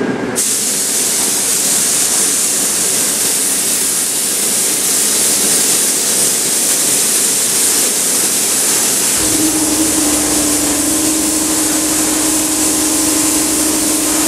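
Compressed-air paint spray gun hissing steadily as paint is sprayed. About nine seconds in, a steady low motor hum starts up under it.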